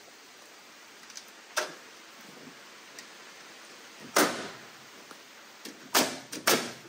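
Cherry siding boards being nailed: sharp knocks on wood, a lighter one about a second and a half in, the loudest about four seconds in, then three in quick succession near the end.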